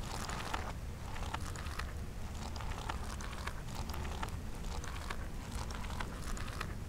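Steady low rumble under dense, irregular crackling and scattered sharp clicks, played in reverse.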